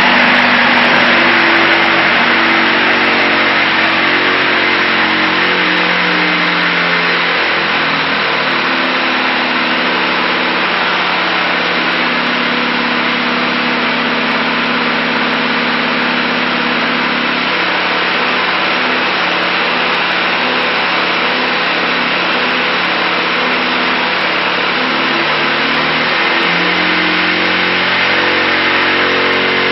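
Aerotwin AT972 four-stroke twin-cylinder aero engine running on test. Its speed eases down over the first several seconds, holds steady through the middle, and picks up again near the end.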